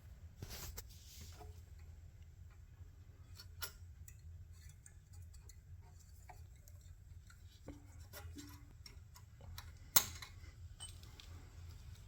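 Scattered light clicks and taps of small parts and hand tools being handled, over a low steady hum, with one sharp click about ten seconds in.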